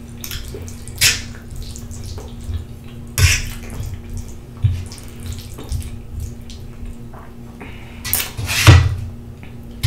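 Close-miked wet eating sounds: chewing and slurping spaghetti in sauce, in a few separate smacks, the longest and loudest about eight seconds in. A faint steady hum runs underneath.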